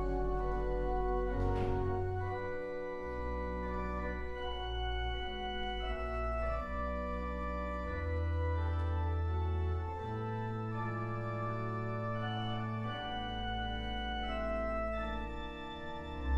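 Organ playing slow, sustained chords over held bass notes that change every second or two.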